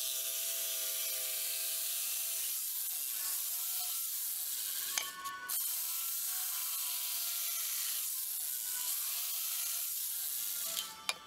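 Corded jigsaw cutting across a wooden board: a steady buzzing rasp with a brief break about five seconds in, stopping near the end.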